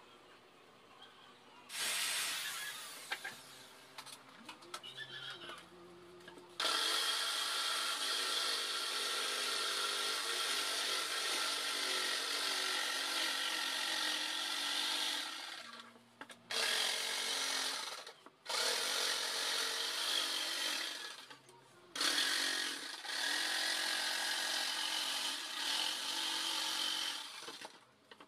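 Electric jigsaw cutting a circular hole in a plywood panel with a steady buzzing rasp. It starts about two seconds in and pauses briefly three times as the saw works around the curve.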